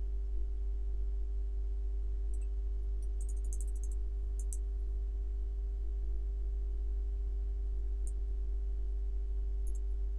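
Steady low electrical hum with several constant tones above it. A few faint, very short high-pitched ticks come about two to four seconds in, and again near eight and near ten seconds.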